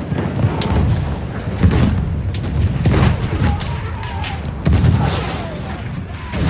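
Battlefield sound effect: a continuous deep rumble of artillery with repeated heavy booms and scattered gunshots.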